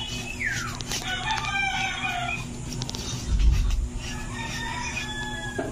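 A rooster crowing, with a second drawn-out crow near the end, and a low thump about halfway through.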